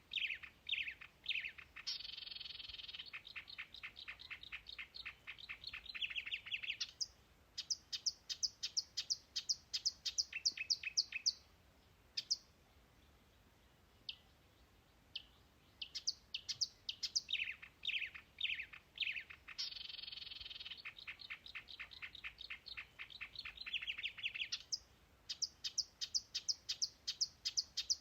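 A songbird singing long, rapid phrases of high chirps and trills, given twice with a few seconds' pause between.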